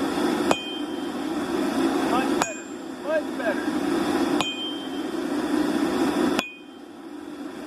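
Hammer blows on hot steel over an anvil: four strikes about two seconds apart, each leaving a bright metallic ring. A steady low hum underneath drops away after the fourth blow.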